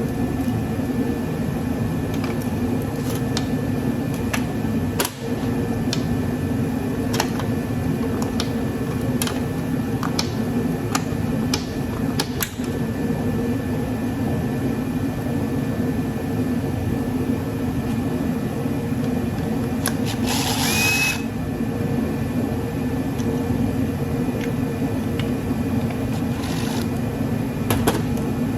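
Steady running hum of a shop heater, with scattered sharp clicks and taps of hand tools on metal as a golf cart charger is taken apart. About twenty seconds in comes a short whir lasting about a second, with a brief rising tone.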